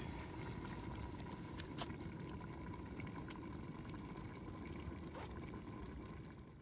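Open wood fire with the three-legged cast-iron potjie pot simmering on it: a steady low hiss with a few sharp crackles scattered through, fading out at the very end.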